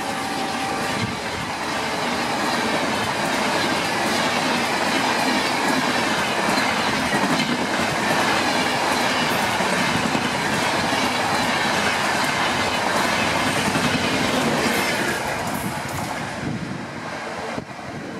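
LHB passenger coaches rushing past at speed on the adjacent track, a steady roar of steel wheels on rail with clickety-clack over the rail joints. The locomotive's horn dies away in the first second, falling in pitch as it passes, and the rushing noise tails off over the last few seconds.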